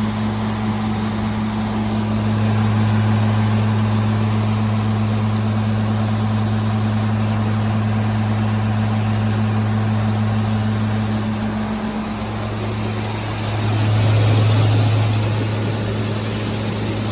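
A farm engine running steadily with a low, even hum and a high hiss, growing a little louder about two seconds in and briefly again near the end.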